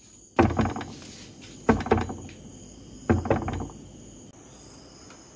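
Knocking on a door: three rounds of quick knocks, about a second and a half apart. Crickets chirp steadily in the background.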